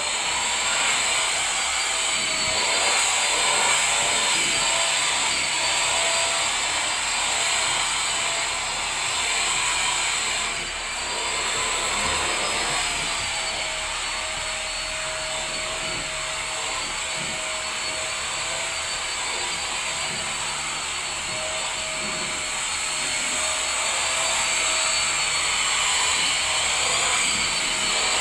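Corded handheld vacuum cleaner running steadily while its nozzle is worked over fabric sofa cushions, a whining motor tone over a rushing air noise that wavers slightly in pitch.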